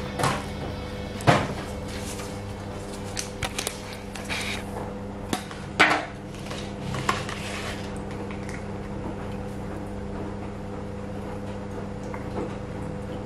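Hard plastic takeaway sushi packaging being handled on a table: the clear lid comes off and is set down, and the small sauce containers are picked out. This gives sharp clicks and taps, most of them in the first seven seconds and quieter afterwards, over a steady low hum.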